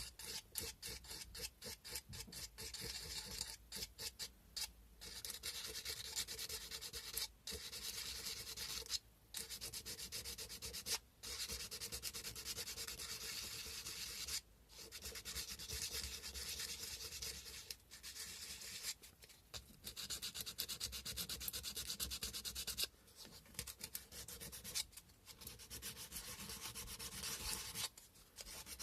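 Sandpaper rubbed back and forth by hand on a carved cow-bone fish hook, a dry scratching. Quick short strokes over the first few seconds, then longer runs of rubbing broken by brief pauses every few seconds.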